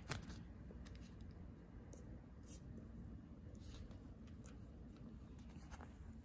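Faint, scattered paper rustles and light ticks from sticker sheets being handled, over a low steady room hum.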